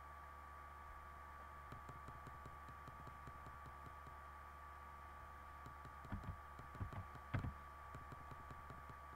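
Faint computer keyboard typing and mouse clicks, irregular small taps with a few louder knocks past the middle, over a steady electrical hum.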